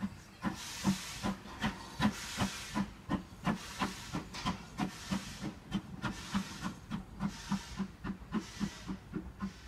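Ivatt Class 2 2-6-2T steam tank locomotive 41298 pulling away with a goods train: a regular chuff of exhaust beats that quickens from about two and a half to about three and a half a second as it gathers speed, over a hiss of steam.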